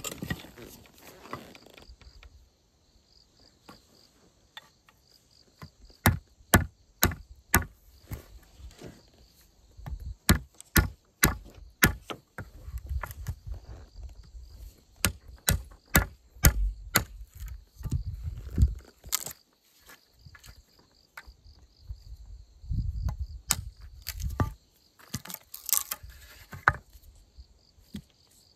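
Series of sharp knocks, about two a second for some ten seconds, then a few more spaced out, typical of hand-tool strikes on wood. Insects chirp faintly and steadily in the first part.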